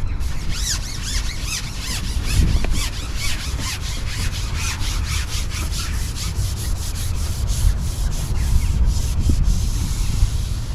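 Fast, even rubbing or scraping strokes, about five a second, with faint squeaks in the first few seconds, over a steady low rumble.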